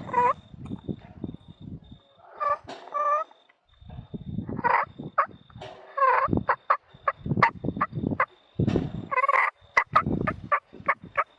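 Rio Grande wild turkeys gobbling several times, each gobble a quick rattling call, with bursts of low rumbling noise and sharp clicks between and under them and a faint steady high tone throughout.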